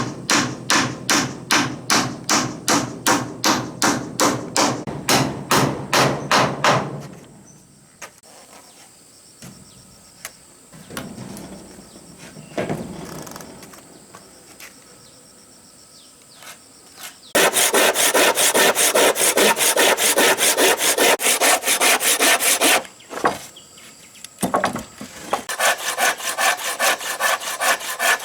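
Hand saw cutting through wood in even back-and-forth strokes, about three a second. It pauses partway through, then resumes with faster strokes in two bursts near the end.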